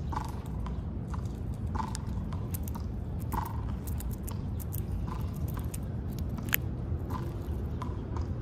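Squirrel eating peanuts, a run of crisp crunches and clicks as it cracks and chews the shells, with one sharper crack about six and a half seconds in. A steady low rumble sits underneath.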